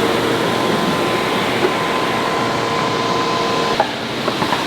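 A machine running steadily with a hiss and a constant hum, which cuts off about four seconds in, followed by a few light clicks.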